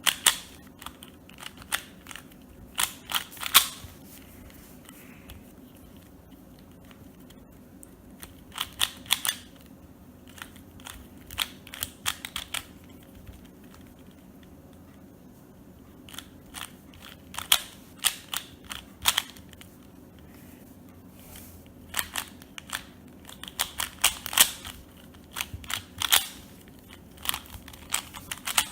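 Valk 3 plastic speed cube being turned in quick flurries of sharp clicks, with short pauses between the flurries.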